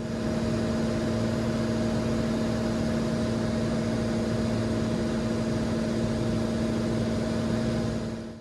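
Cessna 182's piston engine and propeller drone heard inside the cockpit, steady with a strong hum. It fades in at the start and fades out near the end.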